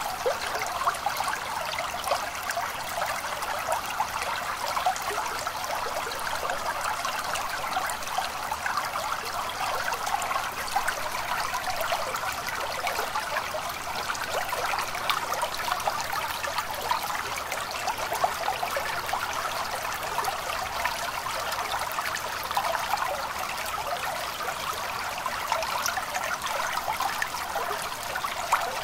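Small stream trickling and babbling steadily, a dense, even patter of water.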